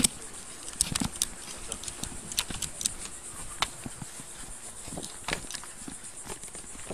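Footsteps on pavement with irregular clicks and jingling of duty-belt gear, picked up by a police body-worn camera while walking, over a steady high hiss.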